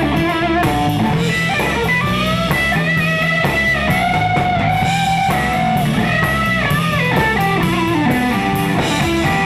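Live band music: a Telecaster-style electric guitar plays a lead line with bent, sustained notes over a steady drum beat.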